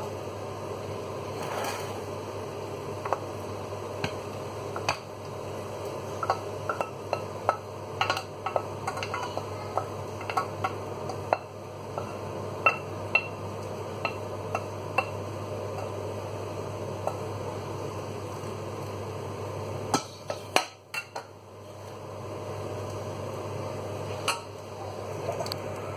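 Wooden spoon knocking and scraping against a stainless steel saucepan as spaghetti is stirred and tipped into an enamel bowl: a run of sharp taps and clinks, with a quick cluster of knocks about twenty seconds in, over a steady low hum.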